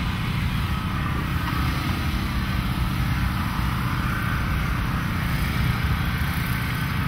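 An engine running steadily, a low even rumble with no revving.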